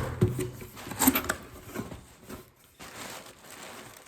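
A cardboard box being opened by hand: a few sharp knocks of the box and its flaps, at the start and again about a second in, then rustling and rubbing as the cardboard and packing inside are handled.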